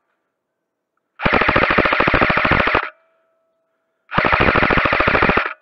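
Two bursts of full-auto fire from an airsoft rifle, each a rapid rattle of shots about a second and a half long, about a second and a half apart.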